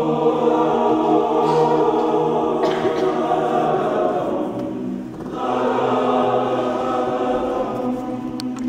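Men's choir singing a slow passage of long, held chords; one phrase dies away about five seconds in and the next begins.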